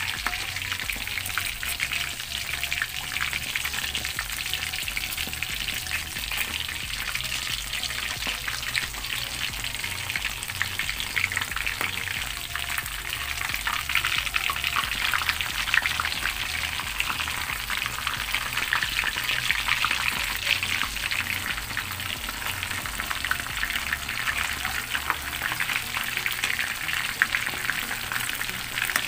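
Breaded chicken cordon bleu rolls deep-frying in a pan of oil over low heat: a steady, dense crackling sizzle.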